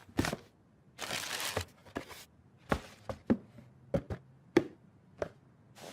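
A run of short, sharp clicks and taps, about eight of them, with a brief rustling swish about a second in: cartoon sound effects.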